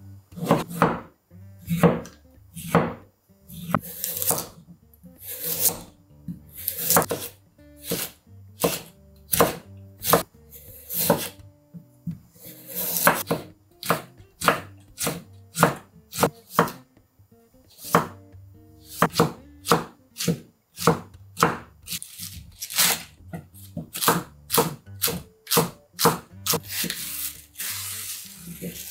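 Cleaver blade slicing vegetables on a thick end-grain wooden cutting board. Each stroke ends in a crisp knock of steel on wood, about one to two a second in uneven runs.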